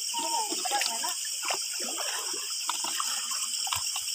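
Shallow water splashing and sloshing irregularly as people wade through it.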